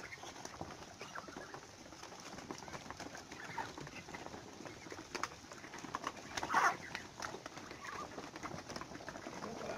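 A large flock of Muscovy ducks feeding: faint, scattered soft calls over many small clicks of bills on feed and ground, with one louder call a little past the middle.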